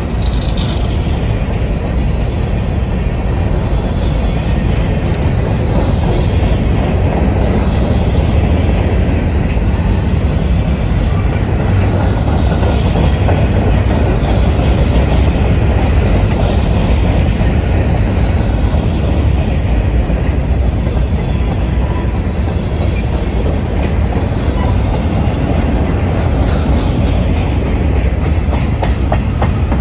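Freight cars of a passing mixed manifest train rolling by at close range: a steady, loud rumble with the wheels clattering over the rails.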